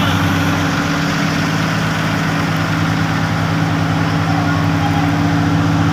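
Asphalt paver's diesel engine running at a steady, even pitch.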